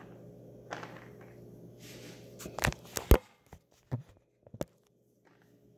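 A few sharp knocks and clicks of handling, the loudest about three seconds in, over faint room noise.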